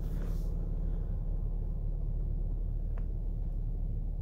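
Steady low rumble of a 2016 Chevrolet Camaro idling, heard from inside the cabin, with one faint click about three seconds in.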